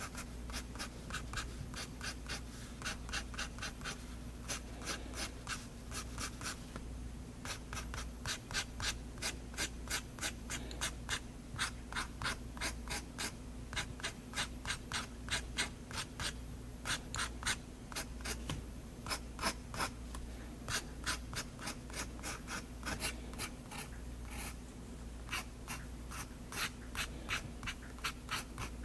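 Extra-fine-nib Faber-Castell Hexo fountain pen scratching on drawing paper in quick, short hatching strokes, several a second, with a few brief pauses.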